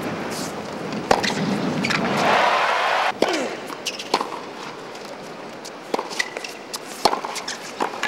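Tennis rally on a hard court: sharp racquet strikes on the ball about every one to two seconds, with crowd noise in the background that swells about two seconds in.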